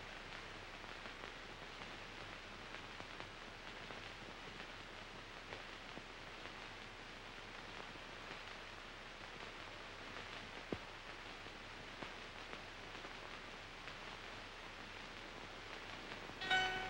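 Steady faint hiss of an old film soundtrack between musical cues, with two faint clicks about two-thirds of the way through. Music with short high notes comes in right at the end.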